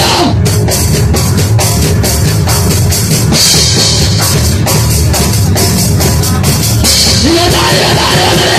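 Punk rock band playing live and loud, with a fast, steady drum beat under guitars and no vocals. A shouted vocal line comes back in near the end.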